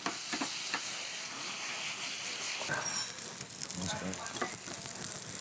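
Vegetables frying in pans on gas burners, a steady sizzle.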